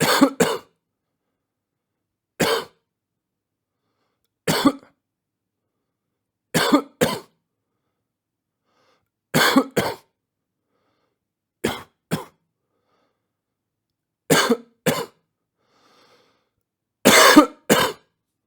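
A man coughing in short fits, one or two coughs at a time every two to three seconds with silence between, and a longer, louder fit near the end.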